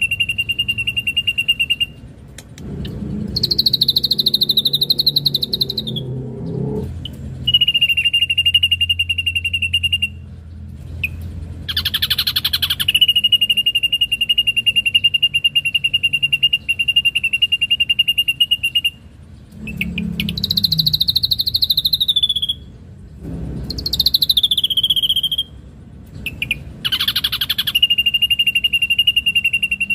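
Ashy drongo singing: long, fast buzzy trills held at one steady pitch for several seconds at a time, broken by shorter, higher notes that slide downward.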